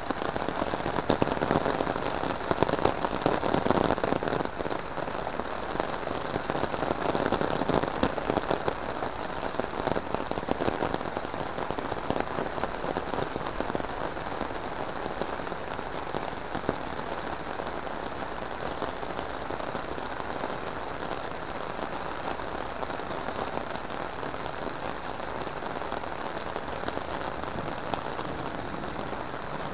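Heavy rain falling steadily, louder and more uneven for roughly the first ten seconds, then settling to an even, steady rush.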